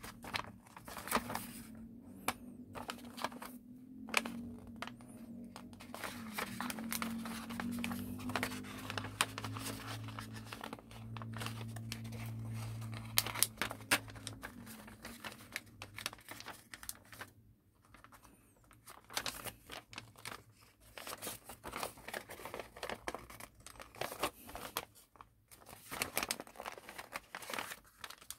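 Origami paper being folded and creased by hand along a crease line: crinkling and rustling with many small crackles. A low steady hum runs underneath until about halfway through.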